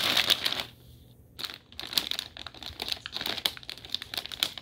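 Plastic pretzel bag crinkling as it is handled, in bursts, with a short pause about a second in.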